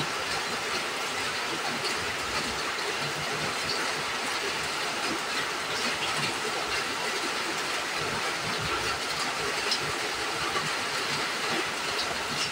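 Steady rushing hiss of heavy rain, with a few small clicks of chopsticks against a porcelain bowl.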